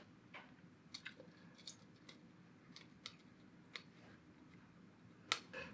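Faint scattered clicks and taps of a tube (valve) socket being handled and pressed into a printed circuit board, with one sharper click near the end.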